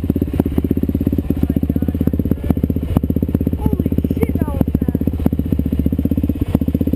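Sport ATV engines idling with a steady, rapid putter, the closest being the camera rider's own Suzuki quad; a few sharp clicks break through now and then.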